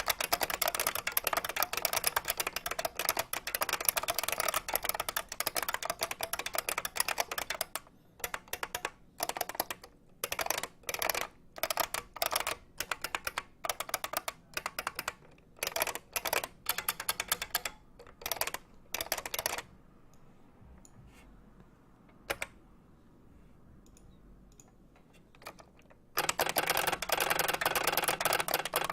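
IBM beam spring keyboard (3276 layout) being typed on: fast continuous keystrokes, thinning to short bursts of keys about a third of the way in, then stopping for several seconds with a single click, before fast typing resumes near the end.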